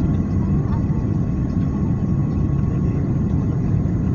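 Steady low rumble of airliner cabin noise from the engines and airflow, with a faint steady whine above it.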